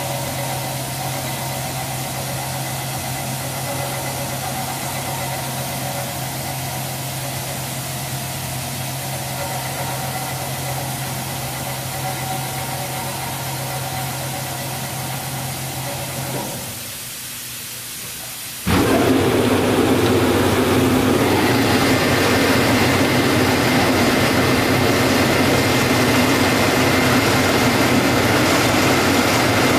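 Timesavers wide belt grinder being started from its control panel. A steady motor hum runs for about sixteen seconds, then dies down. About nineteen seconds in, the machine comes up suddenly much louder, a dense running whir with a steady high whine.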